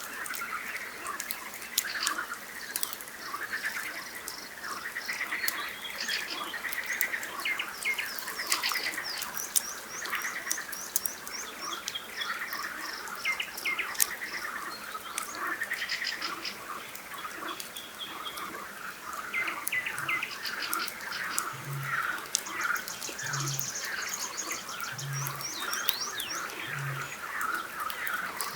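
Spring night chorus at a lake: frogs croaking steadily, a nightingale singing in fast repeated chirps and trills, and a campfire crackling. From about twenty seconds in, a Eurasian bittern booms five times, a low hoot roughly every second and a half.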